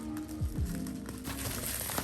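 Background music with held synth notes and a few deep, falling bass hits.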